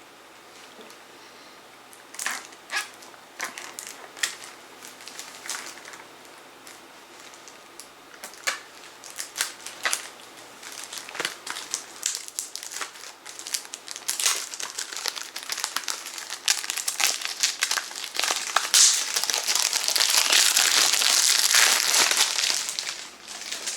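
Plastic wrapping on a CD jewel case being handled, peeled and crumpled, crinkling and crackling. It starts as scattered crackles and builds to continuous loud crinkling in the last third, easing off just before the end.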